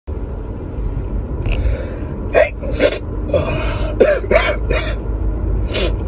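A man with a heavy head cold coughing, a quick run of about seven short coughs, the last one a moment apart from the rest. A steady low rumble runs underneath.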